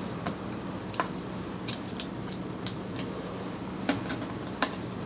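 Scattered light clicks and taps of paper pieces and a small hand tool being handled on a craft mat, about eight in all and unevenly spaced, over a steady low hum.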